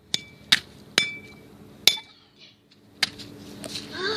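A hammer repeatedly hitting a camcorder's plastic and metal body: about five sharp, uneven clinking blows, some with a brief metallic ring.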